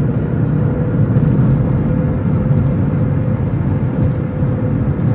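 Steady low road and engine rumble inside a moving car's cabin, with a thin steady tone running above it.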